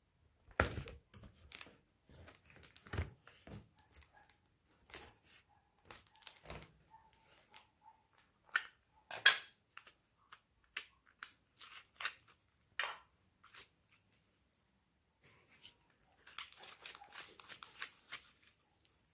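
Slime being worked by hand: irregular sharp clicks and pops, with a denser crackling stretch near the end.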